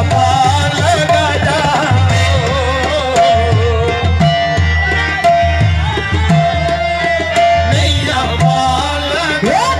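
Live qawwali played through microphones and loudspeakers: a lead voice and chorus singing wavering melodic lines over harmonium drones, driven by a steady tabla rhythm with hand claps.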